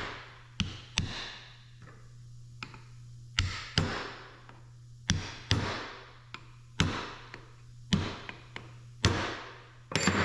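Sharp taps on a hydraulic final drive motor's parts as they are worked into place, often in pairs about half a second apart, each with a short ring, over a steady low hum.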